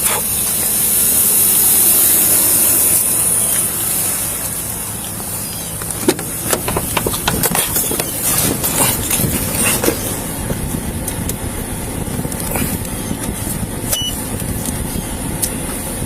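Steady vehicle and road noise with a hiss, heard through a body-worn microphone; from about six seconds in, a run of short clicks and rustles against the microphone lasts for several seconds, then a few scattered clicks.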